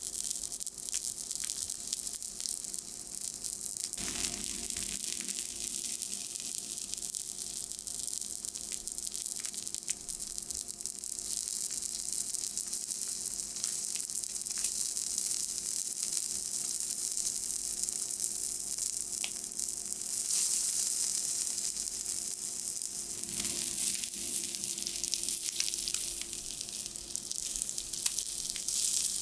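Whole sweetfish (ayu) sizzling in oil on a hot steel teppanyaki griddle: a steady high hiss with scattered crackles, and now and then a sharper tick as the metal spatula and fork work the fish against the plate.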